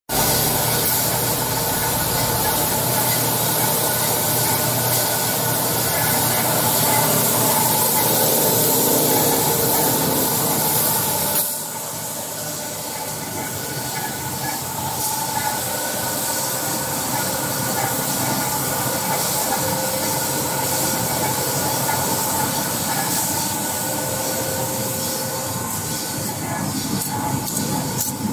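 Wide belt sanding machine running, its abrasive belts grinding stainless steel handsaw blades to a satin finish: a loud, steady hiss over a machine hum. About eleven seconds in the sound drops suddenly to a lower, duller level and stays there.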